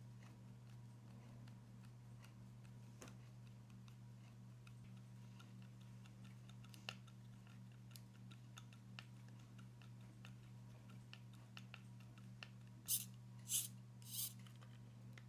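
Faint small clicks and taps of small RC car parts being handled and fitted during assembly, with three short, louder rasping sounds close together near the end, over a steady low hum.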